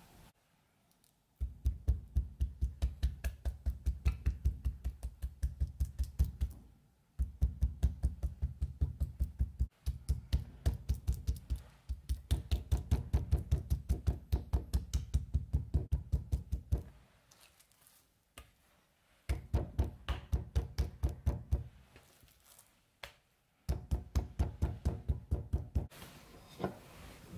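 A metal meat tenderizer mallet pounding raw chicken breast fillets on a wooden cutting board to flatten and tenderize them: rapid, even knocks in several runs of a few seconds with short pauses between.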